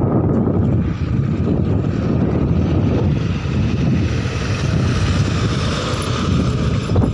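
Strong dust-storm wind buffeting the microphone: a loud, steady, rumbling rush of noise that runs on without a break.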